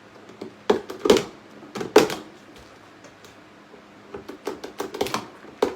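Sharp knocks and clicks of things being handled: three louder ones in the first two seconds, then a run of lighter taps about four seconds in and another sharp knock near the end.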